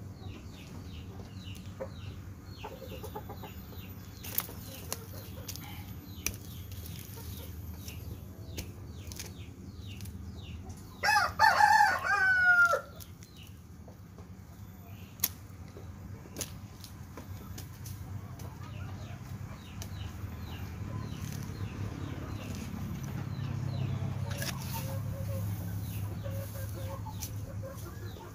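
A rooster crowing once, about eleven seconds in, for about a second and a half, over a steady low hum that grows louder in the second half.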